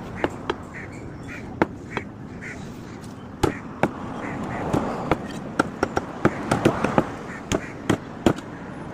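A cleaver or knife chopping chicken on a block: irregular sharp knocks, coming more often after about four seconds. Short bird calls sound in the first couple of seconds.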